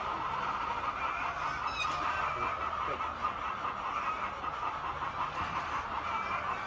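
A flock of laying hens clucking and calling together, a dense steady chorus of many overlapping calls, with a low steady hum underneath.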